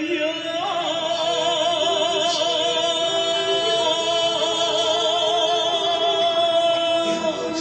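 Chinese opera-style music with one long held note, wavering with vibrato, that ends near the end.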